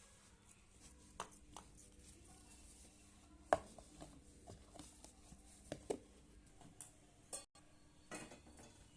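Kitchen utensils and dishes clinking and knocking a few scattered times, with one louder knock about three and a half seconds in and a short cluster near the end.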